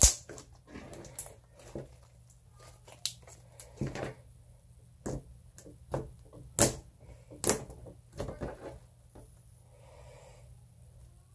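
Sky-blue slime being squeezed, poked and stretched by hand, giving off irregular sticky clicks and pops, the loudest right at the start, then about every second or two.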